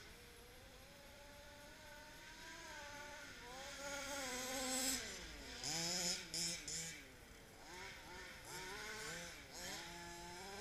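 Small two-stroke petrol engines of HPI Baja RC cars, a buzzing note revving up and dropping again and again as the cars drive around, loudest around five to six seconds in.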